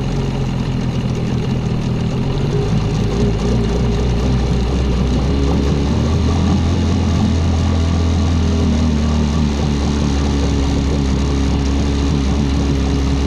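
New Tohatsu 9.8 outboard motor running steadily as it warms up during its break-in. Its note changes a few seconds in.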